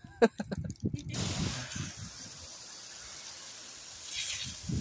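Pressure washer's rinse stream, thrown through a shooter tip, hissing steadily as it sprays house siding, starting about a second in.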